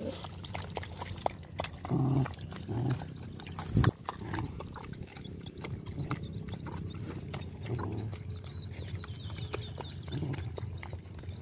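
Several dogs eating wet, soupy food together from a metal basin: steady wet lapping, slurping and chewing clicks, with a few short louder low bursts. A sharp knock about four seconds in.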